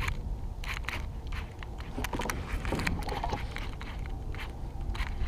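Steady low rumble with irregular light clicks and knocks: handling and gear noise on a fishing kayak.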